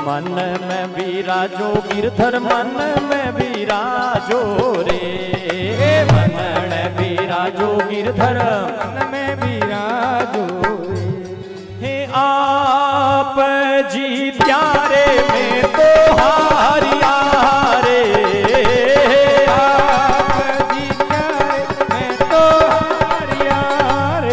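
Devotional bhajan music: a wavering melody over a steady hand-drum beat.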